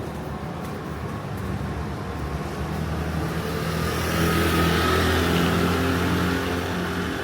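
A motor vehicle passing on a wet street. Its engine hum and the hiss of its tyres swell to a peak about four to six seconds in, then fade.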